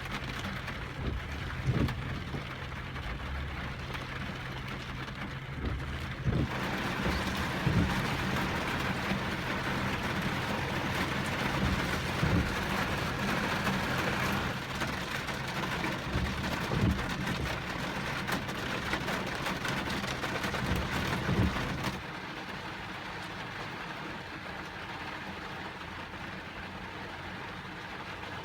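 Heavy rain falling on a vehicle, a steady hiss over the low hum of a running car engine, with scattered louder drop hits. The rain eases about two-thirds of the way through.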